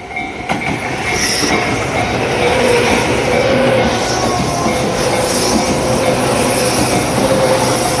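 Full-length Tobu 8000 series electric commuter train pulling away from the station and passing close by, with loud, steady noise of wheels on rail. The noise builds about half a second in and holds, with a faint squeal from the wheels.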